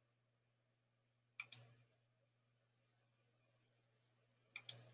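Computer mouse button clicked in quick pairs, twice: once about a second and a half in and again near the end, against near silence.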